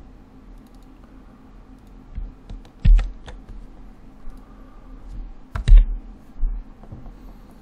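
Computer keyboard keys and mouse buttons clicking as values are copied and pasted, a handful of separate clacks with the two loudest about three and six seconds in, over a low steady hum.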